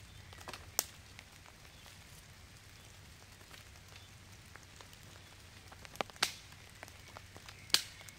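A few sharp cracks of dry wood over a faint steady hiss: one about a second in, a close pair around six seconds, and the loudest near the end.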